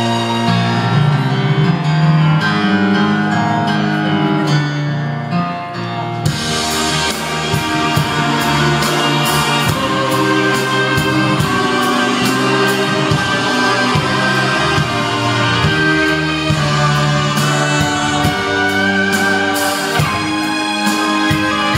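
Live music: male singers on microphones backed by a band and orchestra, with a steady drum beat coming in about six seconds in.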